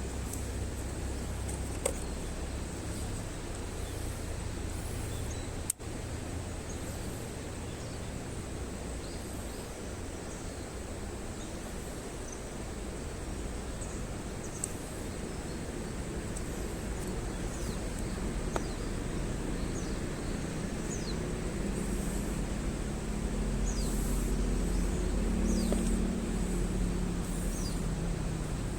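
Wood campfire burning outdoors with a steady hiss and a few sharp pops. Short bird chirps come in near the end, and a low hum swells in the second half.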